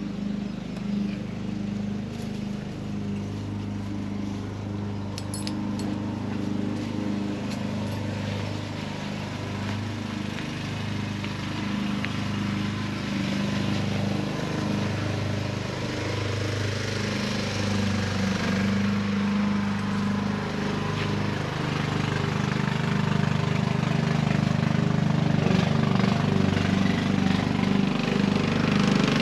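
An engine running steadily at a constant speed, growing louder over the last third.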